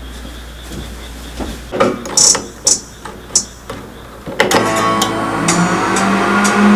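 Balmuda microwave oven being set and started: several sharp clicks and knocks as it is operated, then, about halfway through, the oven's own plucked-guitar start-up notes ring out over a steady low hum as it begins heating.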